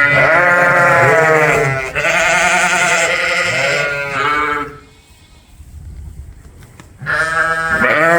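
Sheep bleating loudly close by: two long quavering bleats back to back, a pause of about two seconds, then another bleat starting near the end.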